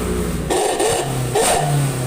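Daihatsu Gran Max van's engine revved up and down through its exhaust, surging about once a second.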